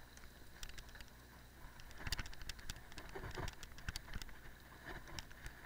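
Cyclocross bike rolling over a paved path and grass: irregular clicks and crackle from the tyres and rattling bike parts over a low steady rumble.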